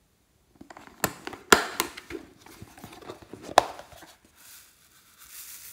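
Pink plastic lunch box being unlatched and opened: a string of sharp plastic clicks and knocks, loudest about a second and a half in and again near four seconds. Then a soft, high hiss as tiny foam beads pour out of it.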